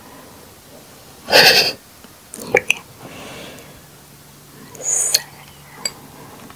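Close-miked handling of a spiny column cactus stem: a few short scratchy rustles and sharp clicks, the loudest about a second and a half in and another near five seconds.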